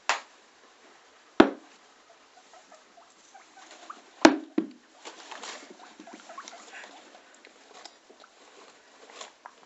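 Guinea pig crunching and nibbling on a hand-held piece of carrot, a faint scattered crackle, with three sharp knocks: one at the very start, one about a second and a half in, and the loudest about four seconds in.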